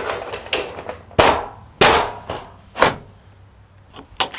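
A chalk line snapped onto the roof deck, with sharp knocks: three loud ones about a second, two seconds and three seconds in, and smaller clicks between them.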